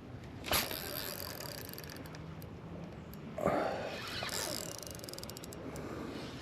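Spinning fishing reel worked just after a cast: a sharp click about half a second in, then faint ticking of the retrieve, with a brief louder scrape partway through.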